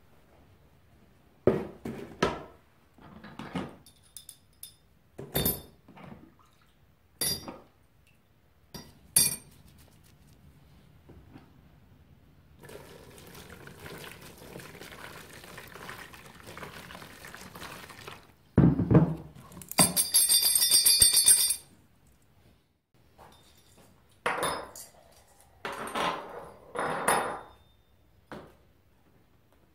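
Small metal shock-absorber parts clinking and knocking against a plastic tub and a wire-mesh strainer, then water poured steadily over them for several seconds. A loud rattling metal clatter follows, then more clinks as the parts are handled in a tray of liquid.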